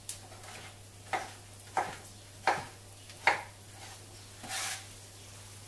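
Chef's knife cutting eggplant into cubes on a plastic cutting board: five unhurried knife strikes on the board, about two-thirds of a second apart, then a longer, softer sound near the end.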